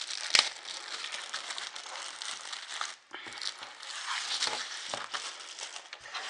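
Crinkling and rustling of packaging and paper instruction leaflets being handled, with a sharp crackle about half a second in.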